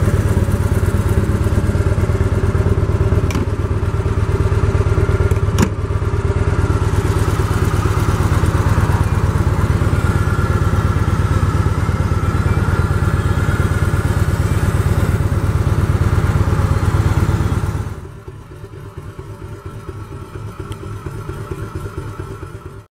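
2013 Victory Cross Country Tour's Freedom 106 V-twin engine idling steadily, with two sharp clicks about three and six seconds in. Near the end the engine is quieter and heard from farther off.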